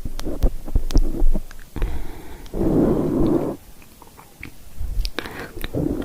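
Close-miked ASMR trigger sounds: scattered small wet clicks and pops of soft mouth sounds, with a stretch of rubbing on the microphone about two and a half seconds in that lasts about a second.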